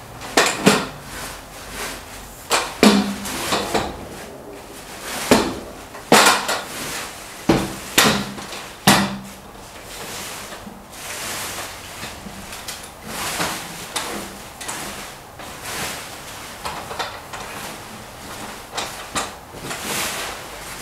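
A metal pole being slid through the pole pocket of an artificial flower wall panel: the pole knocks and clanks several times in the first nine seconds or so, then lighter clicks and rustling of the plastic foliage and fabric backing as the panel is handled.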